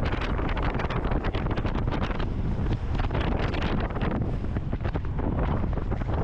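Wind buffeting the microphone of a camera on a moving vehicle: a loud, steady rush broken by gusty crackles, over the low rumble of the vehicle.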